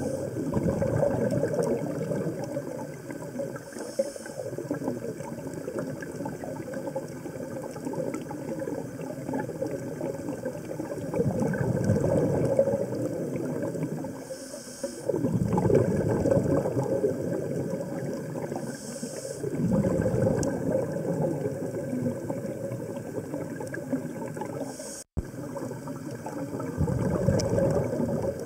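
Scuba regulator breathing underwater: short hisses of inhaled air and bursts of exhaled bubbles, repeating every few seconds. The sound drops out for an instant near the end.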